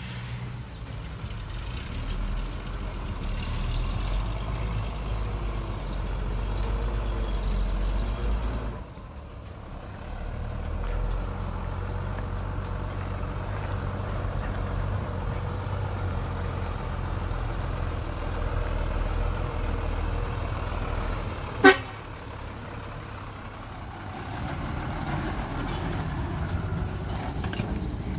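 Heavy diesel engines of earthmoving machinery running with a steady low rumble, easing briefly about nine seconds in. A single short vehicle horn toot sounds about twenty-two seconds in.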